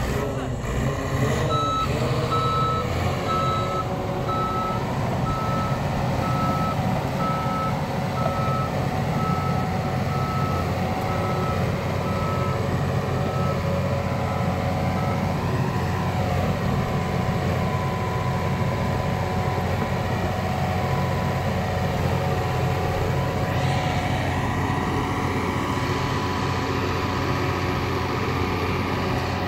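Back-up alarm on heavy diesel machinery beeping about once a second for roughly the first half, over a diesel engine running steadily. The beeping then stops, and the engine note changes about three quarters of the way through.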